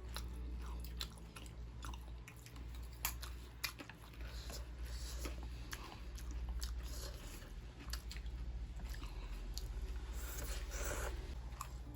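A person chewing and eating food close to the microphone, with many short wet clicks and smacks scattered throughout.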